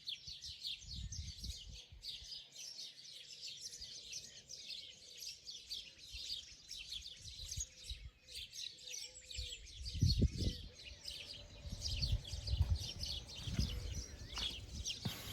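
Birds chirping and singing continuously in a dense chorus of quick, high, repeated notes. Low rumbling thumps come in from about two-thirds of the way through.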